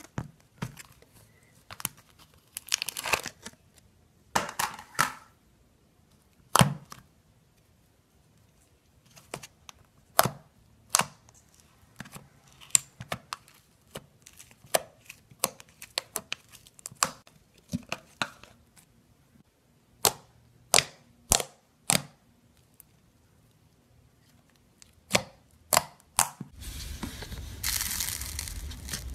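Slime being squeezed and poked with fingers: sharp, sticky pops and clicks at irregular intervals, with quiet gaps between them. Near the end comes a dense crackling from foamy, bubble-filled slime pressed under the fingertips.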